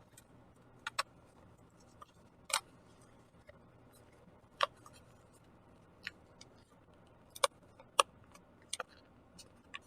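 A square sheet of origami paper being folded and creased by hand: short, sharp crinkles and taps, scattered about one a second.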